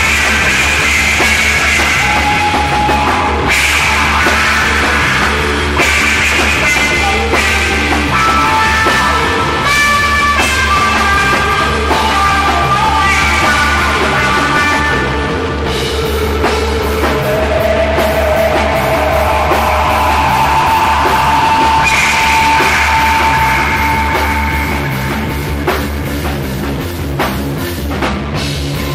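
Loud instrumental psychedelic rock: a drum kit and guitars playing continuously, with long held lead notes that step between pitches.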